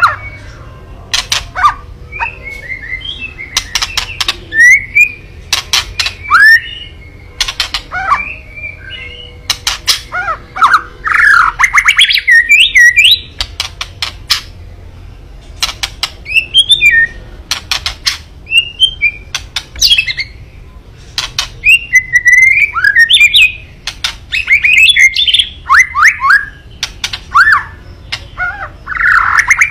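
White-rumped shama (murai batu) giving its harsh 'kretekan' call: sharp crackling clicks mixed with whistled glides and fast rattling trills, in irregular bursts. It is the aggressive, agitated call that keepers use to rile other shamas.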